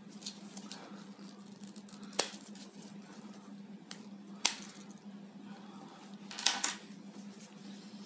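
Sharp plastic-and-metal clicks and snaps as the red plastic scale of a Victorinox Picknicker pocket knife is pried off its frame. There are three loud snaps about two seconds apart, the last a quick rattling cluster, among smaller clicks.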